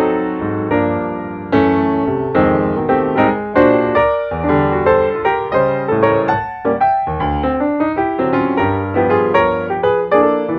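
Background piano music: a steady flow of notes, each struck and fading.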